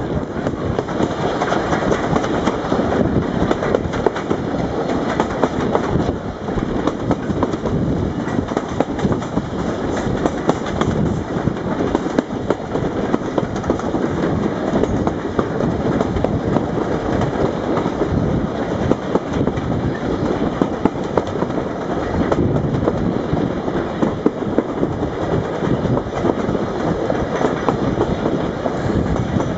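Passenger train coaches running along at speed, heard from an open window beside the carriage: a steady rumble and rush of wheels on rails, with many short clicks and clatters from the track.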